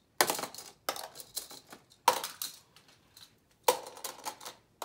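Beyblade tops and parts, plastic and metal, clinking and clattering as hands rummage through storage bins, a few sharp clatters about a second apart.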